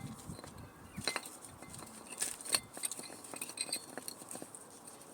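Light metallic clinks and clicks of small steel brake parts, brake shims or pads, being handled and set down against one another.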